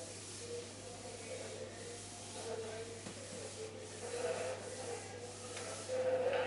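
Cloth duster rubbed over a whiteboard, erasing marker writing in repeated scrubbing strokes.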